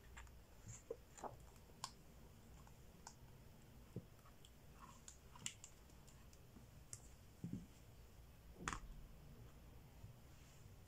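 Near silence with scattered faint clicks and taps of a hardcover children's board book being handled, closed and turned over, and one louder knock about nine seconds in.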